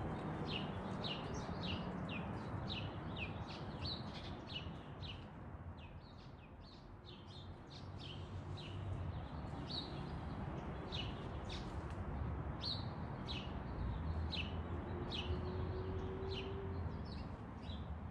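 A small bird chirping over and over, short sharp chirps at about two a second, over a steady low outdoor rumble.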